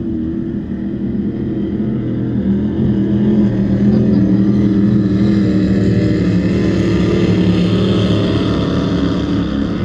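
Racing powerboat engines droning loudly across the water as the boat runs past, swelling to a peak midway and easing off near the end.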